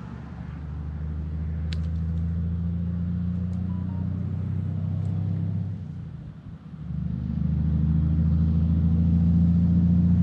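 A low, steady engine rumble that dips briefly about six seconds in, comes back louder, and cuts off suddenly at the very end. A few faint clicks come about two seconds in.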